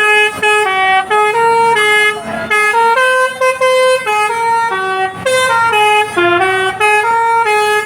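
Basuri telolet multi-tone air horn on a bus playing a tune: a run of loud held notes, stepping up and down in pitch one after another.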